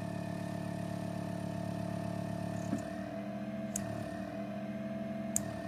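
Vacuum pump of a beauty vacuum device running with a steady hum; the seller calls this the normal pump sound. The hum changes about three seconds in, with a few sharp clicks.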